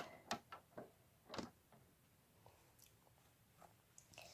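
Faint clicks and taps of plastic toy horse figures knocking against a wooden toy fence and each other as they are moved, several in the first second and a half and a few weaker ones later.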